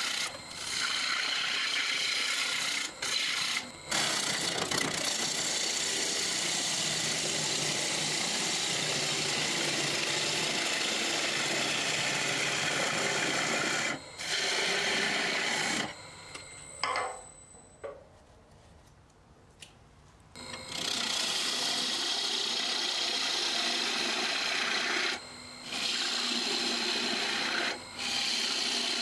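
Wood lathe spinning a wooden bowl blank while a gouge cuts into it: a steady, rough scraping hiss of the cut, with a thin high whine running under it. The sound breaks off briefly several times, and drops to near quiet for a few seconds just past the middle.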